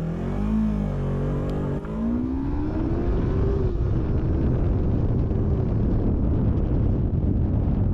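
Yamaha YZF-R3's 321cc parallel-twin engine accelerating hard from a standstill to 100 km/h. The revs climb, drop at a gear change a little under two seconds in, and climb again. After about four seconds the engine note is buried under a loud wind roar on the microphone.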